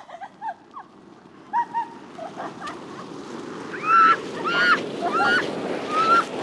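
High squealing yelps, several short arched cries, over a rushing, scraping noise that builds as someone slides across ice.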